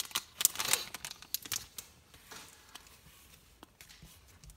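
Foil trading-card pack wrapper crinkling and rustling as the cards are pulled out, dying down after about two seconds to faint handling of the card stack.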